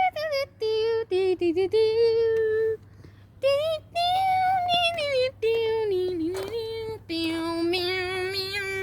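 A child singing a melody in held notes, phrase after phrase with short breaks between.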